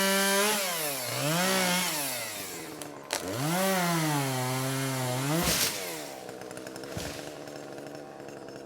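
Chainsaw revved up and eased off several times, its pitch falling back toward idle between revs. There is a sharp crack about three seconds in and a brief burst of noise a little past halfway, after which the saw runs lower and quieter.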